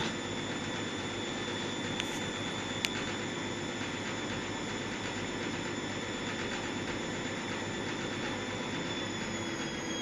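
Indesit front-loading washing machine spinning at speed: a steady motor whine over a rushing hum, with two faint ticks around two and three seconds in. About nine seconds in the whine starts to drop in pitch as the spin begins to slow.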